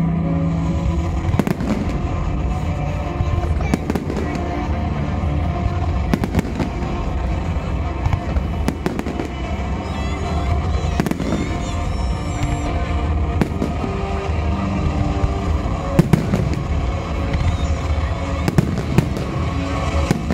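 Aerial fireworks shells bursting in a display, sharp bangs every few seconds with crackle between, the loudest about three-quarters of the way through, over steady music playing throughout.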